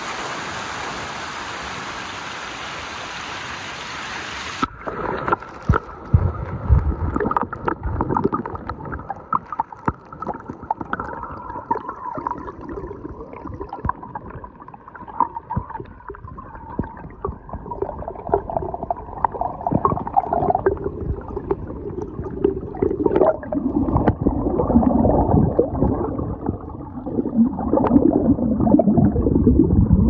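Snowmelt stream rushing over rocks below a waterfall. About four and a half seconds in, the sound turns suddenly muffled as the microphone goes underwater: gurgling water over the stones with irregular small knocks, louder near the end.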